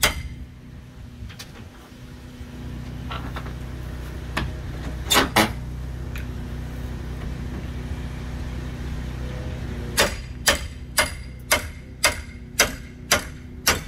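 Hammer blows on the wooden roof framing of a shed being knocked apart: a few scattered strikes, a sharp double strike about five seconds in, then a steady run of about eight blows, roughly two a second, over the last four seconds. A steady low engine-like hum runs underneath.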